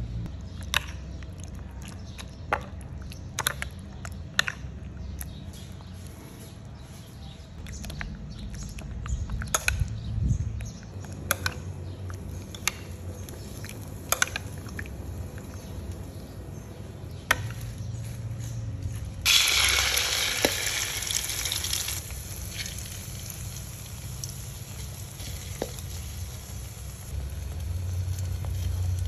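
Metal spoon clicking against the bowl while stirring sliced bitter melon into beaten duck eggs. About two-thirds of the way in, a sudden loud sizzle starts as the egg mixture goes into hot oil, then settles into a steady frying sizzle.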